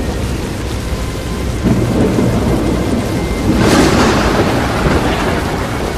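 Tornado winds and driving rain beating against a vehicle. The noise swells about a second and a half in, then a stronger, hissing gust hits near the middle and eases off toward the end.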